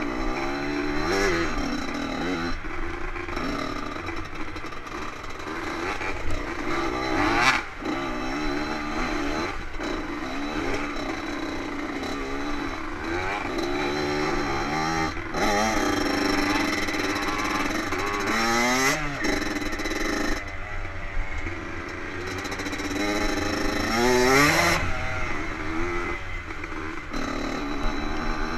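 Two-stroke dirt bike engine being ridden hard off-road, its revs rising and falling with the throttle and gear changes. The pitch climbs steeply twice in the second half, and there is one sharp knock about a quarter of the way in.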